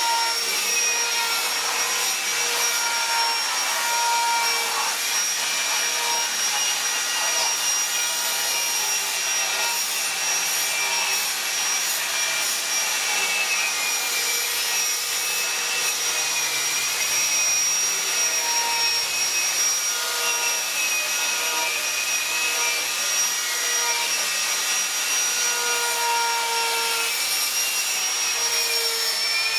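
Handheld rotary carving tool with a cone-shaped burr grinding wood: a steady high whine with a lower tone that wavers a little, over the rough rasp of the burr cutting.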